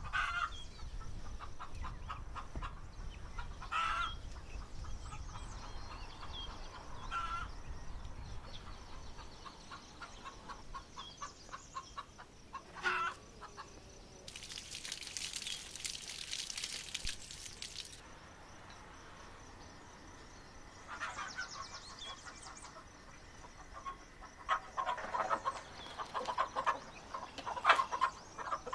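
Domestic chickens clucking on and off, the clucks coming thick and fast near the end as the hens are fed scraps. A few seconds of steady hissing noise stand out in the middle.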